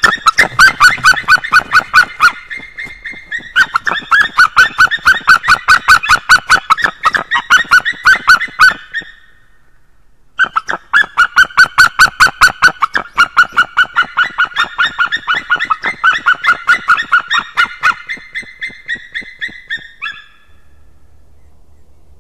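White-tailed eagles calling at the nest: two long bouts of rapid, yelping notes, about five a second, with a short pause between them. The calling stops a little before the end.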